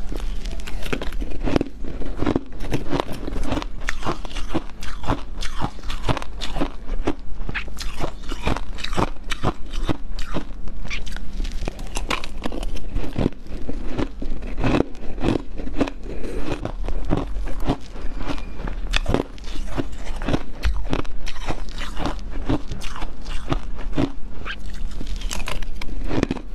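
A person biting and chewing mouthfuls of shaved ice mixed with hard ice chunks: a dense, continuous run of sharp crunches and crackles.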